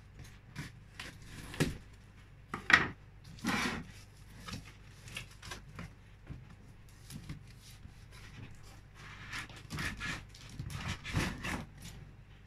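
A cardboard box being opened by hand: scissors cutting the packing tape and the stiff cardboard flaps being worked open, a series of short scraping and rustling noises, loudest about three seconds in and again near the end.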